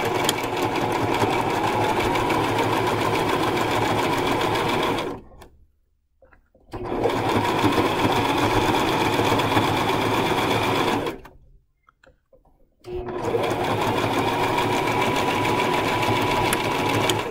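Portable electric home sewing machine stitching a seam, its motor running evenly with rapid needle strokes. It stops twice, briefly, about five and eleven seconds in, then sews on.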